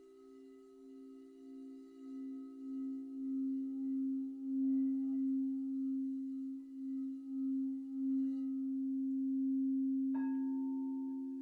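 Frosted quartz crystal singing bowls ringing in sustained, overlapping tones with a slow wavering pulse, swelling louder. About ten seconds in another bowl is struck, adding a higher tone over the drone.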